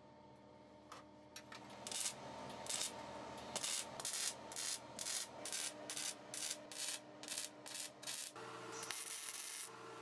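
MIG welder arc crackling in a rapid series of short bursts, about three a second, as steel is stitch-welded, then a steadier run of the arc near the end.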